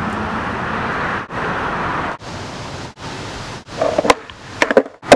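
Steady rushing street noise with no clear tones, broken off abruptly about every second as short clips change. Near the end there are several short, sharper sounds.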